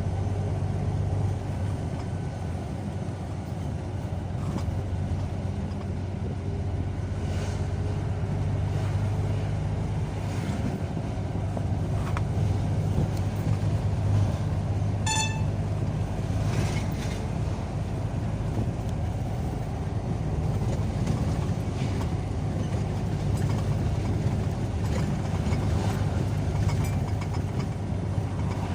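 Car driving along a road: steady engine and tyre rumble, with one short pitched beep about halfway through.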